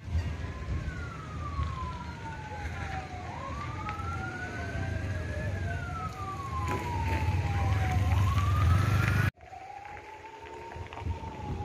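Two emergency-vehicle sirens wailing at once, their slow rising and falling tones crossing each other over a low rumble, growing louder until a sudden cut about nine seconds in. After the cut a single fainter siren wail goes on.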